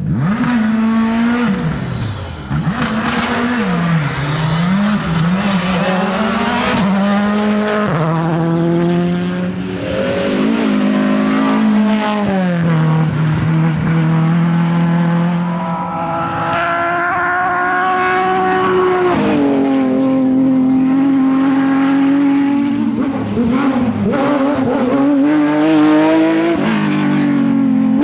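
Rally cars at full attack: engines revving hard, the pitch climbing and dropping sharply again and again as they accelerate, shift gear and brake for corners.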